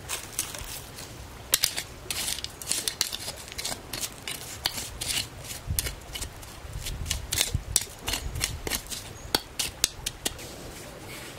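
Loose soil and small stones being scraped and swept over a burnt patch of ground with a tool, a quick irregular run of gritty scrapes and pebble clicks.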